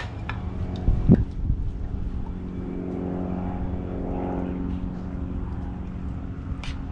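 Steady low motor drone, like an engine running, that swells briefly midway, with a single thump about a second in.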